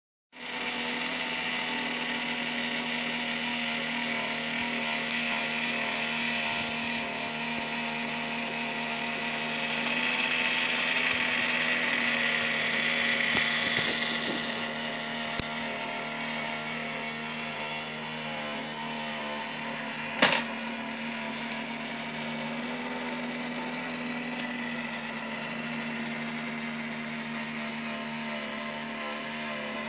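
Steady whir of the toy TARDIS console's small battery-powered motor, running without a break. A few sharp clicks and one louder knock about twenty seconds in come from the plastic playset being handled.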